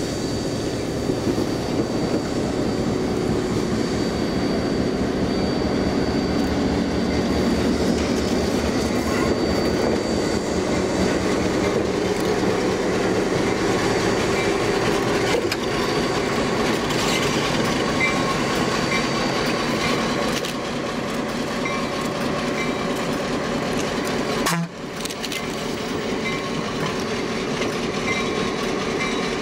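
Western Pacific 918-D, an EMD F7 diesel locomotive, rolling slowly past close by with a steady engine rumble and clicking over rail joints. The sound cuts out for an instant about 25 seconds in, then carries on the same.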